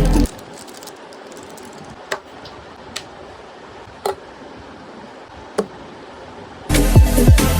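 Four short, sharp clicks, about a second apart, over a low steady hiss. Electronic background music cuts off just after the start and comes back loudly near the end.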